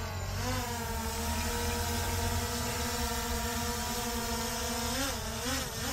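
DJI Mavic 2 quadcopter hovering just after lift-off, its propellers giving a steady buzzing whine. The pitch dips slightly as it settles at first, and it wavers up and down near the end as the drone moves.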